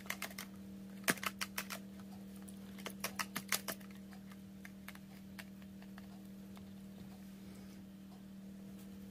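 Light, rapid plastic clicks and taps from a small bubble bottle and its wand being handled and opened, in three short clusters over the first few seconds, then only a steady low hum.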